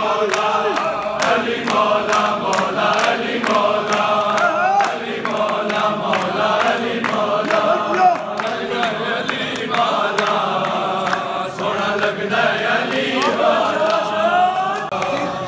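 A crowd of men chanting a devotional refrain in unison, phrase after phrase, with hand claps keeping the beat.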